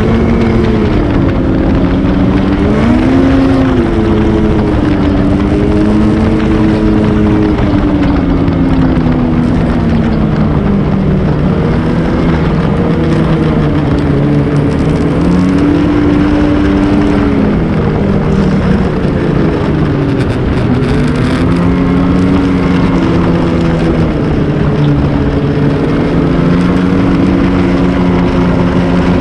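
Ski-Doo Renegade XRS 850 snowmobile's two-stroke twin engine running under way, its pitch rising and falling repeatedly as the throttle is worked.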